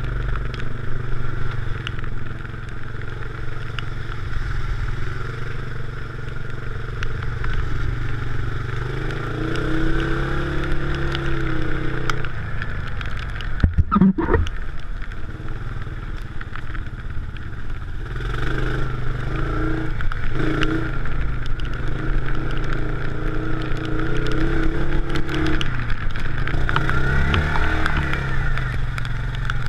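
Off-road vehicle engine running under changing throttle, its note rising and falling as it is driven over rough ground.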